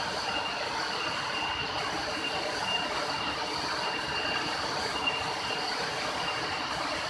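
Waterfall about 20 metres high, water falling and rushing in a steady, unbroken roar. A thin high chirp repeats about once a second over it.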